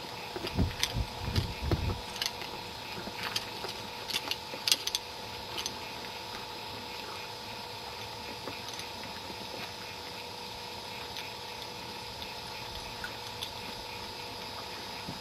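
Steady hiss with a constant hum; over the first two seconds low rumbling thumps, like wind buffeting the microphone, and scattered sharp clicks for the first five seconds or so, the loudest near five seconds in, then only the steady hiss.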